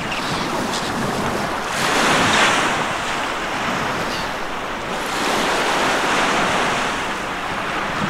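Sea waves breaking on a beach: a steady rush of surf that swells twice, about two seconds in and again about five seconds in.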